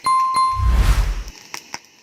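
A bright ding, sounded twice about a third of a second apart and ringing out for about a second, with a low whoosh swelling under it.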